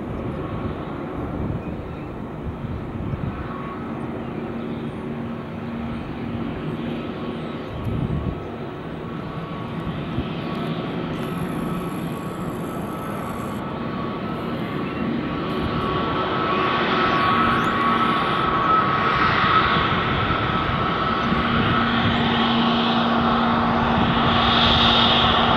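Airbus A321neo's Pratt & Whitney geared turbofan engines running at taxi power: a steady jet whine over a low hum, getting louder over the last ten seconds or so as the airliner comes closer.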